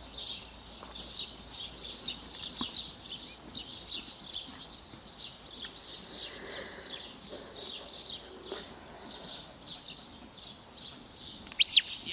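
Birds chirping and singing steadily in the background. Near the end comes a single short, loud whistle that rises and falls.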